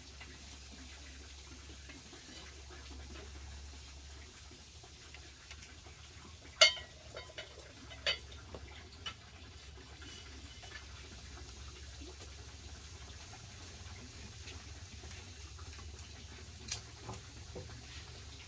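Faint water sounds, like water being poured or splashed, broken by a few sharp knocks. The loudest knock comes about a third of the way in, with smaller ones just after it and another near the end.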